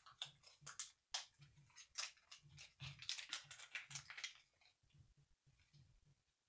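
Faint clicking and rustling of small model-railway track parts handled in the fingers. The clicks die away about two-thirds of the way through.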